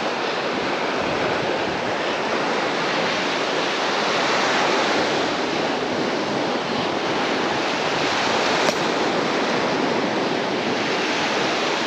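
Steady rush of surf washing onto the beach, swelling slightly about four to five seconds in.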